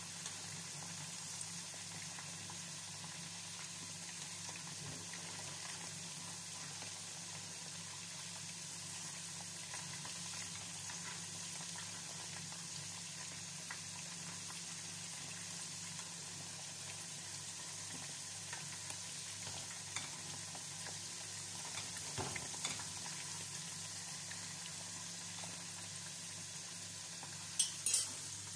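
Potato wedges frying in hot oil in a pan: a steady sizzle over a low hum. A few sharp metal clicks near the end.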